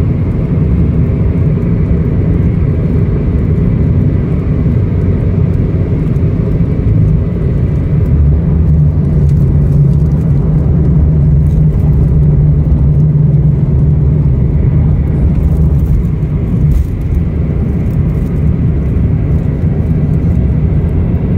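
Steady low rumble of a motor vehicle in motion. A low engine hum grows stronger for several seconds midway, then eases back.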